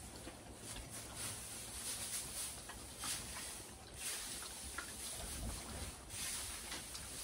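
Loose hay rustling and swishing as it is forked and tossed with a pitchfork, a swish every second or so.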